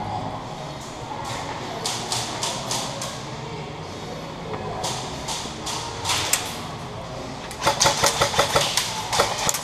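Airsoft electric guns firing in bursts of rapid clicks: a few short bursts in the first half, then a longer, faster burst of about seven shots a second near the end.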